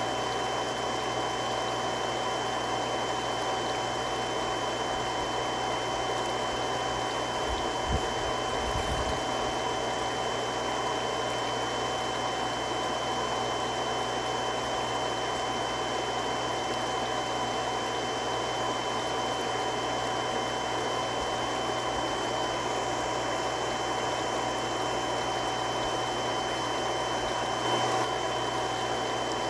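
Three-stage irrigation water pump running steadily: an even rushing noise with a constant hum and a few steady whining tones. There are brief low thuds about eight seconds in and again near the end.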